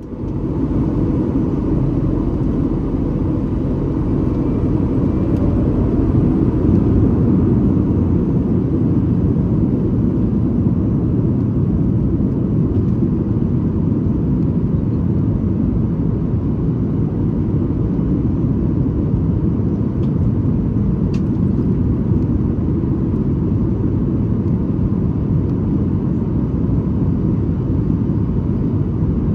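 Steady cabin noise of a Boeing 737 MAX 8 in flight, heard from inside the cabin: a low, even rumble of the CFM LEAP-1B engines and the airflow over the fuselage.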